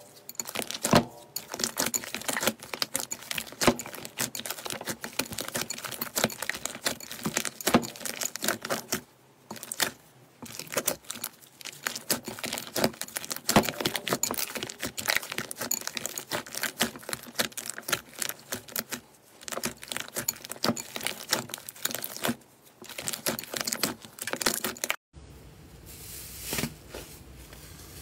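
Hands kneading, folding and squeezing thick glossy slime, giving a dense, fast run of sticky clicks and crackling pops. Near the end it cuts to a much quieter, soft hiss.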